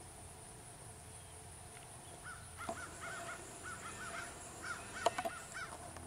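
Birds calling outdoors: a run of short, repeated arching notes begins about two seconds in and continues, with a few sharp clicks in the second half.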